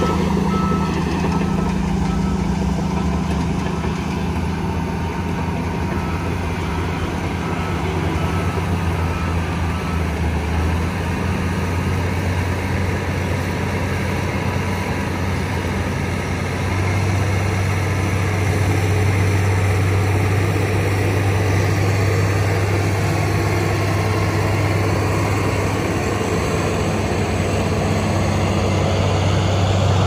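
Shantui crawler bulldozer's diesel engine running steadily, with a reversing alarm beeping at an even pace through the first part. From just past halfway the engine note grows deeper and louder as the dozer pushes a load of soil with its blade.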